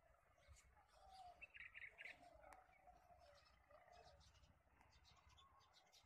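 Faint bulbul chirps, with a quick run of about four short notes around a second and a half in and scattered single chirps after.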